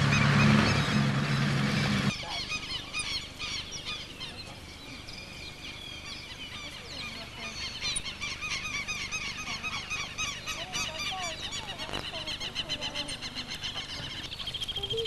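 Domestic geese honking and calling over dense, high chirping. For about the first two seconds a loud rushing noise with a low hum covers everything, then cuts off suddenly.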